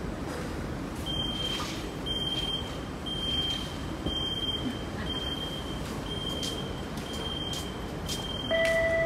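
An electronic beep sounding about once a second over the running noise inside an SMRT Siemens C651 train, followed near the end by a two-note descending chime of the kind that comes before an onboard announcement.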